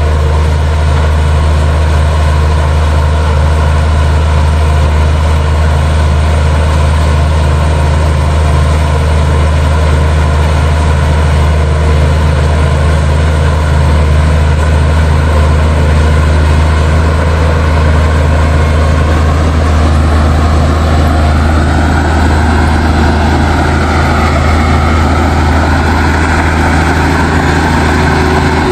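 Liugong bulldozer's heavy diesel engine running with a steady low hum. From about two-thirds of the way in, a higher whine rises and falls as the machine works.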